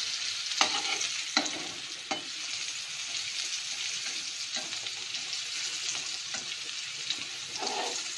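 Stuffed whole bitter gourds sizzling steadily in hot oil in an aluminium kadai. A metal spatula scrapes and taps the pan a few times in the first two seconds as the gourds are pressed down and turned.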